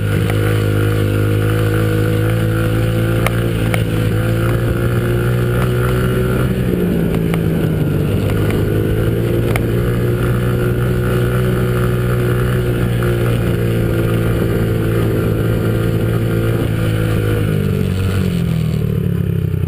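Dirt bike engine running steadily under way, heard from the rider's chest with wind rumble on the microphone. Its pitch shifts once about a third of the way through and falls near the end as the bike slows.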